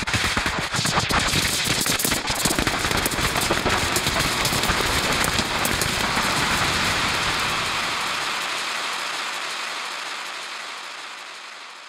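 Electronic noise texture made from live-sampled data-centre sounds: a dense crackle of many clicks over a broad hiss, which fades out over the last few seconds.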